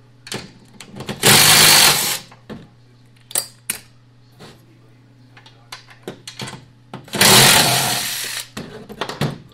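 Cordless impact driver running in two bursts, about a second long a second in and about a second and a half long seven seconds in, backing bolts out of the chipper shredder's housing. Light metal clicks of tools and bolts come in between.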